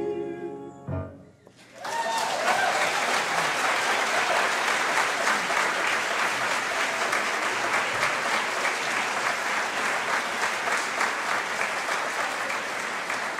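A men's choir's last sung chord fades out in the first second. The audience then bursts into steady applause with a few whoops, lasting to the end.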